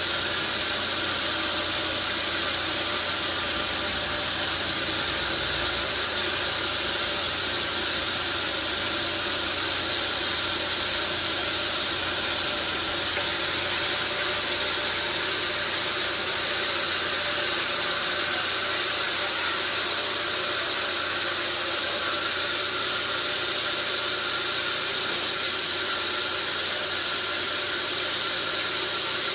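Sawmill machinery running steadily: a constant mechanical hum with several fixed tones over a loud, even hiss, with no change in pitch or level.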